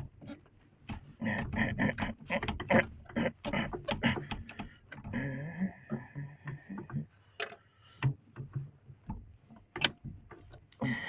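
Hand-tool work on a skid steer's cab-door gas strut: a string of irregular clicks, knocks and clanks as the strut is pried off, with a drawn-out squeak about halfway through.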